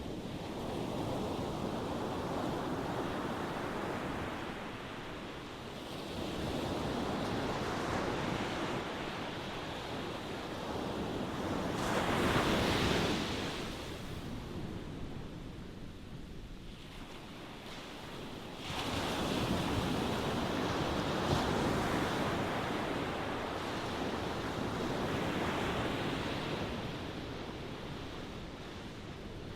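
Ocean waves breaking and washing ashore: a steady hiss of surf that swells and ebbs in several surges, the strongest crash about twelve seconds in and another surge building sharply just past the midpoint.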